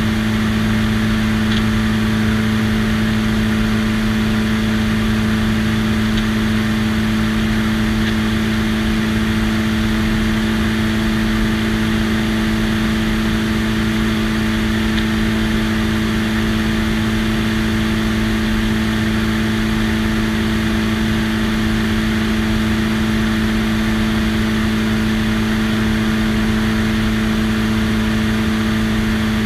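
Light biplane's engine and propeller running at a steady cruise, one unchanging hum, under the rush of slipstream over a wing-mounted microphone.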